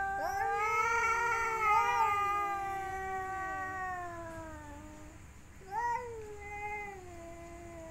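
Tomcats yowling at each other in a mating-season standoff over a female. There is one long wavering yowl of about five seconds, then a short rising yowl about six seconds in that trails off lower.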